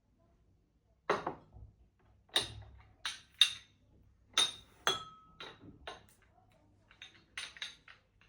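Tableware clinking as pieces are set down and knocked against each other: about a dozen irregular sharp clinks, one ringing on briefly a little past halfway.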